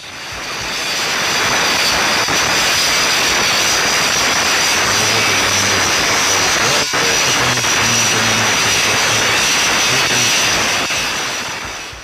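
Angle grinder cutting metal: a loud, steady grinding noise with a high motor whine. It fades in, drops out for an instant near the middle, and fades away near the end.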